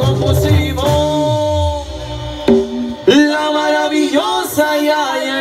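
Mexican brass banda playing live: the horn section holds long chords over a tuba bass line. The tuba drops out about two seconds in, and the horns come back with a loud accented chord about three seconds in and hold it.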